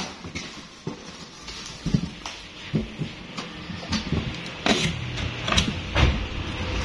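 Cardboard speaker boxes being handled during unpacking: flaps and cardboard sheets knocking and scraping in irregular thumps, with a steadier rushing noise near the end.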